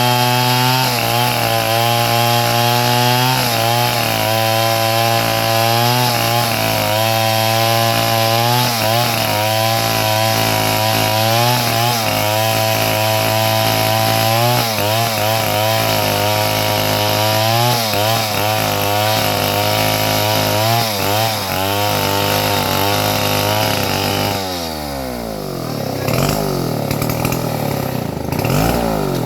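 A sawmill's engine runs steadily while the saw cuts wood, its pitch wavering with the load. About five seconds before the end it slows down with a falling pitch, then picks back up.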